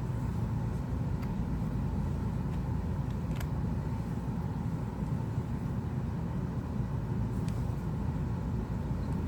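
Steady low background rumble, with a few faint, light clicks spread through it.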